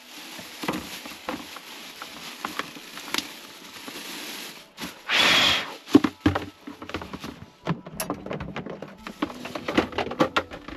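Thin clear plastic bag crinkling and rustling as it is handled and fitted as a liner over a small bin, with a louder swish about five seconds in and dense crackling after it.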